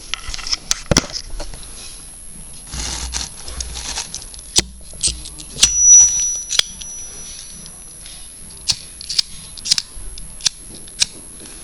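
Scattered clicks and knocks of hands handling a blowtorch head on a butane-propane gas canister. A thin high whistle lasts about two seconds in the middle.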